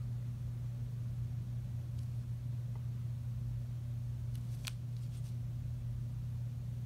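A steady low hum, over which a Sharpie felt-tip pen makes a few faint scratches on paper as it draws small arcs, with one sharper tick about two-thirds of the way through.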